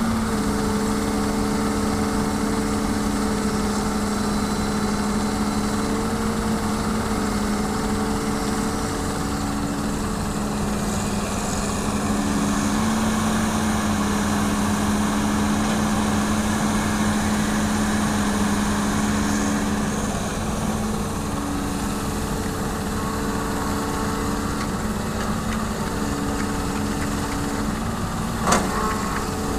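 Hitachi hydraulic excavator's diesel engine running steadily while it digs soil and loads it into a dump truck, the hum shifting slightly in pitch now and then as the load changes. A single sharp knock sounds near the end.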